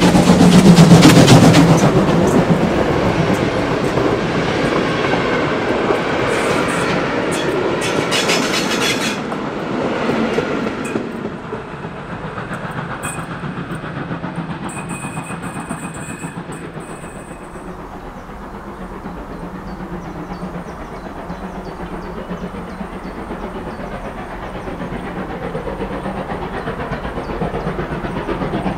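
A steam-hauled train passing close by. It is loudest in the first two seconds as the locomotive goes past, then the wagons roll by with a clickety-clack of wheels over rail joints, growing quieter from about eleven seconds in.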